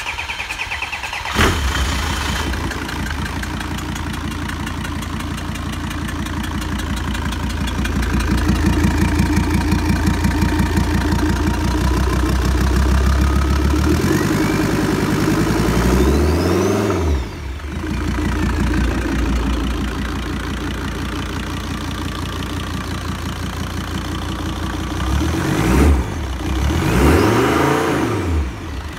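OM662 2.9-litre five-cylinder diesel engine from a SsangYong Rexton idling steadily just after starting, revved up and let fall back to idle twice, once around the middle and again near the end.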